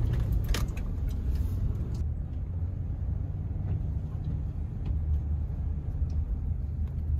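Car on the move: a steady low rumble of engine and road noise, with a few sharp clicks in the first couple of seconds.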